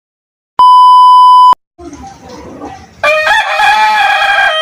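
Dead silence, then a loud flat beep tone lasting about a second, then a rooster crowing: one long cock-a-doodle-doo starting about three seconds in.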